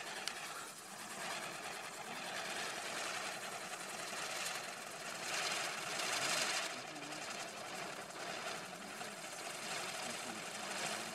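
Ground firework fountain spraying sparks with a continuous hiss and rapid crackle that swells louder midway through, with one sharp pop near the start.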